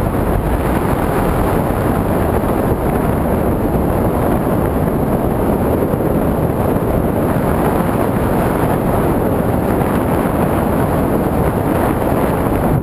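Steady wind rushing and buffeting across the microphone of a camera on a tandem skydiver, a loud, even roar with no break.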